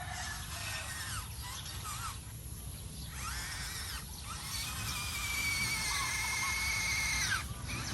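Electric motor and gearbox of an RC off-road car whining as the throttle is applied and released. The pitch rises as each burst starts and falls away as it stops, with short gaps between bursts and a long run through the second half that cuts off near the end.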